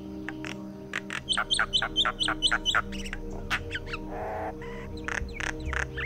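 Common myna calling: a quick run of short, sharp repeated notes, about four a second, then a harsh rasping note about four seconds in, followed by more sharp notes near the end.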